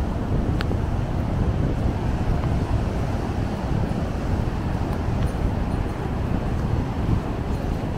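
Ocean surf breaking and washing up over flat sand, a steady low rush, with wind buffeting the microphone.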